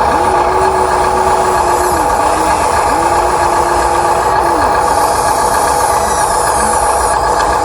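Radio-controlled excavator at work: a steady engine-like hum with an electric motor whine that rises, holds and drops away three times as the arm is moved.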